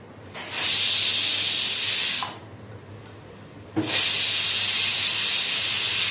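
Prestige pressure cooker whistling twice: two bursts of steam hissing out under the weight valve, each about two seconds long, with a pause of a second and a half between them. Two whistles mark the end of the pressure cooking, after which the cooker is left to release its pressure by itself.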